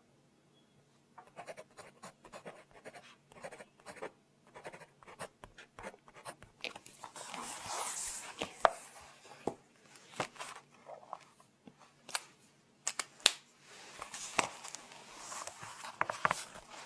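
Pen writing on paper close to the microphone: scratchy strokes with small sharp taps and clicks, as a phone number is written down.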